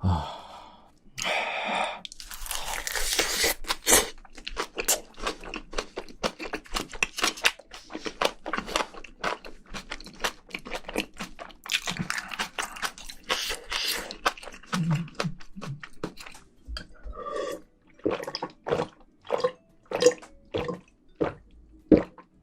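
Close-miked chewing of spicy braised seafood and rice, with rapid crunching and wet mouth clicks, thinning out near the end.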